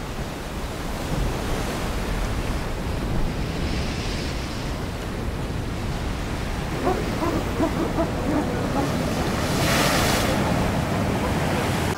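Sea surf washing on the shore with wind in a steady rush; a louder wave breaks about ten seconds in.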